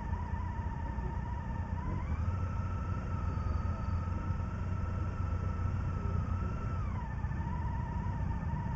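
Motorcycle on the move: a steady low engine and wind rumble, with a thin whine that steps up in pitch about two seconds in and drops back near the end.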